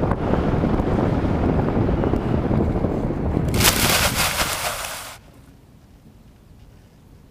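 Wind rushing over the onboard camera microphone of a Skywalker FPV plane flying low, then a loud scratchy hiss as the plane slides into long grass on landing. About five seconds in the sound cuts away to a faint background as the plane comes to rest.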